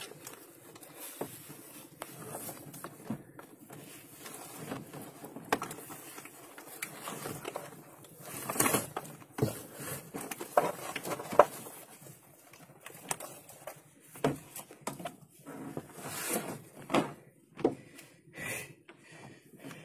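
Irregular knocks and thumps on a small fishing boat's deck and gunwale while a large billfish is handled aboard, with a low steady hum underneath.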